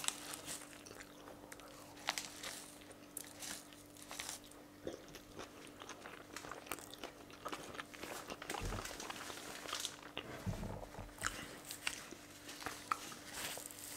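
A person chewing a mouthful of chicken shawarma, with many small wet crunches and clicks. There is a faint steady hum underneath, and a couple of dull low thumps come about two-thirds of the way through.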